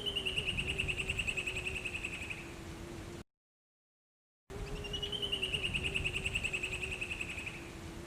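Point-tailed palmcreeper singing: a fast trill of ringing notes that falls slightly in pitch over about two and a half seconds. The song is heard twice, separated by a short gap of dead silence, over a faint steady low hum.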